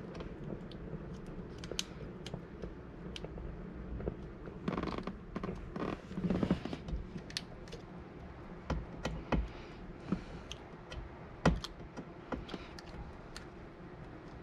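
Old window tint film being peeled off car glass, crackling and creaking in scattered small clicks as its adhesive lets go, with one sharper click late on.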